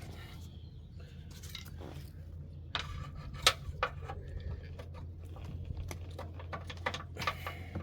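Hand tools clicking and clinking against metal parts, a handful of sharp clicks scattered through, over a steady low hum.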